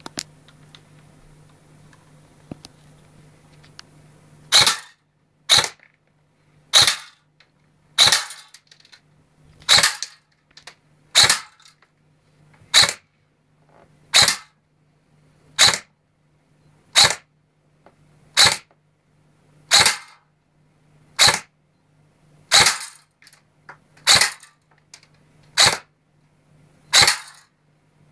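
Systema M4A1 airsoft rifle firing single shots, a sharp crack about every second and a half, about seventeen in all, starting about four and a half seconds in. A faint low hum runs under them.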